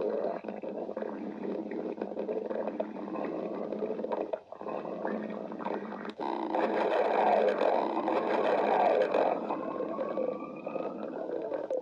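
A person's stomach growling and gurgling without a break. It dips briefly twice, swells loudest about seven to nine seconds in, and ends in a long, rising whine.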